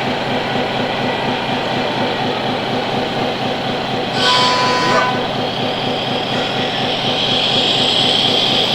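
Radio-controlled model trucks running with a steady mechanical rumble. About four seconds in comes a horn blast of under a second, and from the middle onward a high motor whine that slowly rises in pitch.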